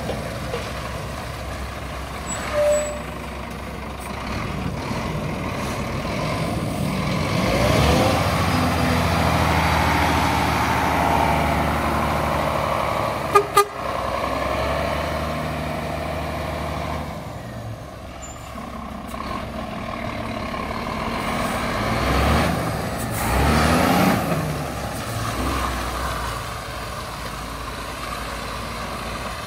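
Scania P360 hook loader truck's nine-litre five-cylinder diesel engine running as the truck is driven, its revs climbing about a quarter of the way in and again later on. There are two short, sharp sounds about halfway through.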